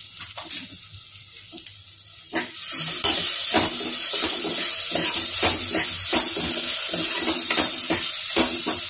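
Crushed spices, garlic, shallots and curry leaves sizzling in hot oil in a metal pot while a metal spoon stirs and scrapes them, clinking against the pot about twice a second. The sizzling turns suddenly louder about two and a half seconds in.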